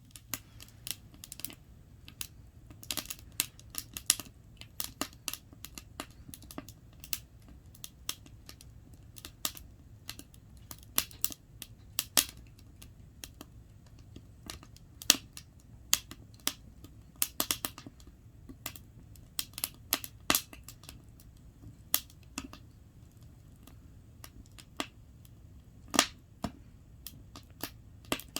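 Wood fire crackling in a Solo Stove smokeless fire pit: irregular sharp pops and snaps, several a second with louder cracks every second or two, over a low steady rumble of the flames.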